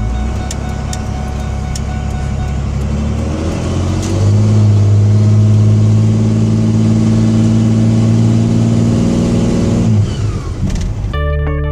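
5.9 Cummins diesel engine of a Ford Excursion heard from inside the cab while driving. It pulls harder about four seconds in, rising a little in pitch and getting louder, holds steady, then eases off near the end. Music cuts in just before the end.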